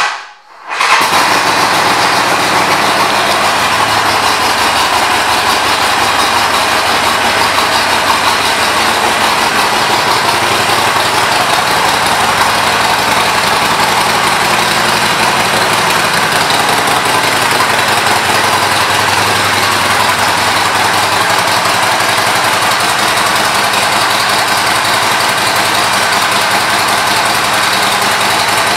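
2009 Harley-Davidson Sportster 1200 Nightster's air-cooled 1200 cc Evolution V-twin fires up, catches within about a second, and then idles steadily.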